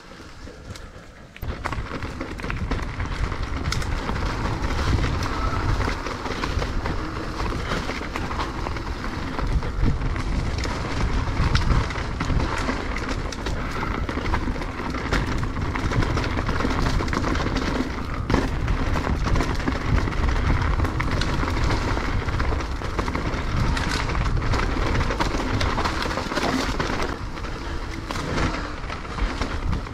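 Mountain bike being ridden down a rough trail: a steady rush with a heavy low rumble, and many rattles and knocks from the bike over bumps. It starts suddenly about a second and a half in.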